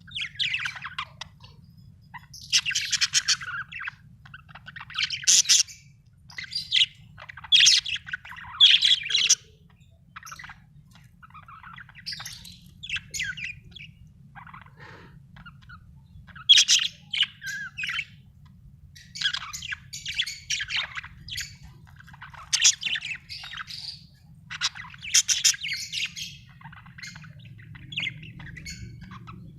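Budgerigar chirping and chattering in quick high bursts of a second or two, with short pauses between them.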